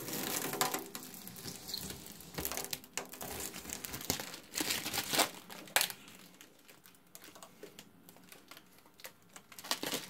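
Clear plastic protective film being peeled off a framed PCB solder stencil and crumpled in the hand: irregular crinkling and crackling, busiest in the first half and sparser after about six seconds.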